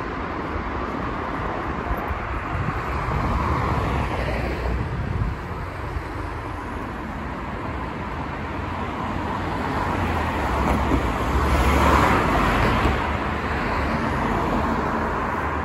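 City street traffic: motor vehicles passing on the road, swelling up around four seconds in and again, louder, around twelve seconds in, over a steady low rumble.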